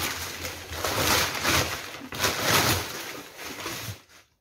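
Packing paper in a cardboard box rustling and crinkling in repeated bursts as it is pulled out and rummaged through. It stops about four seconds in.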